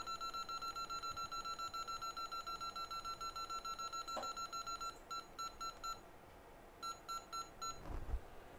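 An electronic beeper sounding a rapid string of high beeps, about seven a second, for about five seconds, then two groups of four beeps. A faint knock comes about four seconds in and a low thud near the end.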